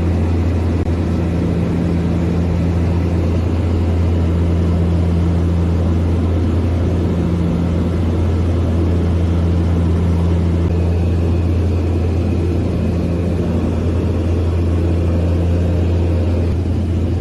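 Steady, loud drone of a small twin-turboprop airliner's engines and propellers, heard inside the cabin in flight, with a low hum that holds one pitch.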